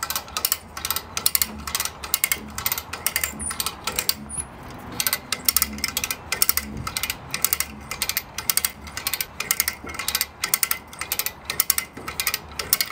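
Hand-operated come-along ratchet clicking steadily as its handle is cranked, several clicks a second with a brief pause about four seconds in, while it winches a boat hull up onto a trailer.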